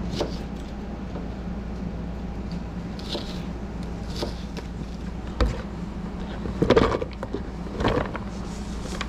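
Kitchen knife dicing a red onion on a plastic cutting board, with light taps of the blade, then the diced onion scraped off the board into a plastic container with a few louder knocks and scrapes in the second half, over a steady low hum.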